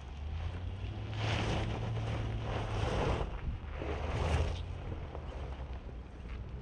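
The 2022 Nissan Armada's 5.6-litre V8 running with a steady low hum as it pulls up a loose off-road climb with traction control off, under three surges of rushing noise about a second and a half apart.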